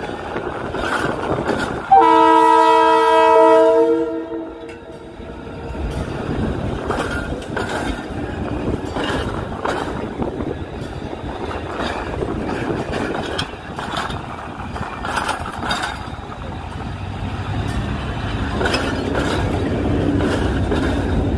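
Abu Qir line passenger train sounding its horn in one loud blast of about two seconds, starting about two seconds in. Its coaches roll past with the clank and clack of wheels over the rail joints.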